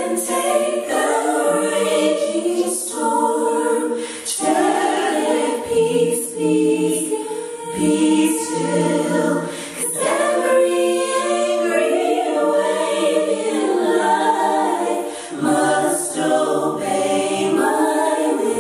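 Three female singers singing a gospel song in close harmony into microphones, a cappella.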